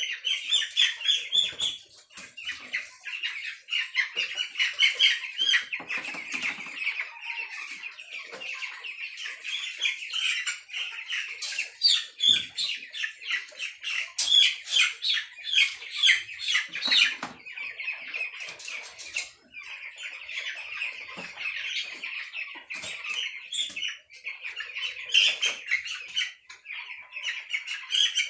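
A house full of broiler chickens peeping continuously, many shrill calls overlapping.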